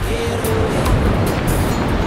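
Background music with a steady beat, over a wash of wind and surf.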